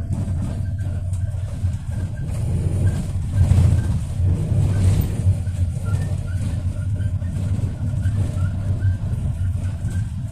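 Toyota Coaster minibus heard from inside the passenger cabin while moving: a steady low engine and road rumble that swells for a couple of seconds about three seconds in.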